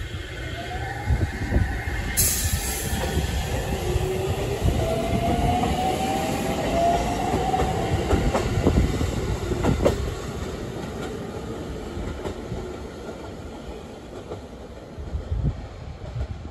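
Series 313 3000-subseries electric train pulling away and accelerating. Its Toshiba IGBT VVVF inverter whine climbs steadily in pitch over a low rumble of wheels on rail with a few clicks. The sound fades as the train draws off.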